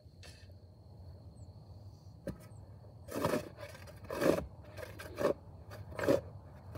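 A long-handled shovel being driven into hard clay soil: four short scraping strokes about one a second in the second half, after a single sharp tap a little over two seconds in.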